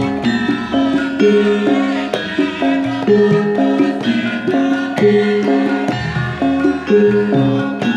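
Javanese gamelan music: bronze metallophones strike pitched notes in a steady, stepwise repeating melody, with a hand drum beating along.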